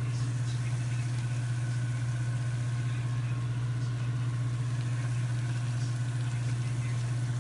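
A steady low hum at an even level throughout, with a faint sizzle of lumpia deep-frying in oil underneath.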